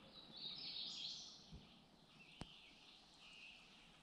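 Faint woodland ambience: birds singing high and thin, loudest in the first second or so, with a single light click about two and a half seconds in.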